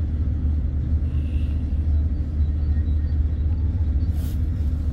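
Steady low rumble of a car heard from inside the cabin, its engine and road rumble at a slow crawl in traffic.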